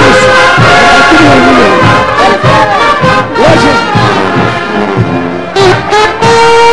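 Brass band with trumpets and trombones playing morenada parade music, with a long held note near the end.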